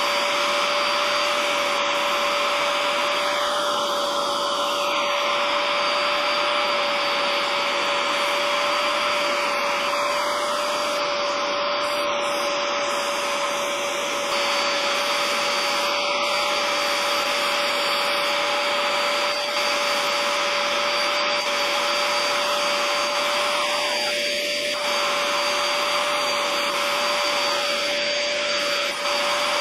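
Vacuum motor running steadily with a constant whine as its hose wand is drawn over the car's floor carpet.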